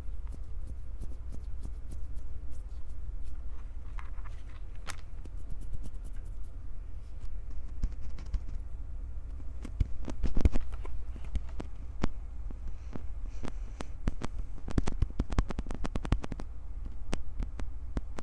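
Hands gripping, squeezing and rubbing right on a Tascam recorder's microphones: a low, steady handling rumble under a crackle of sharp clicks and scratches. The clicks come thickest about ten seconds in and again around fifteen seconds.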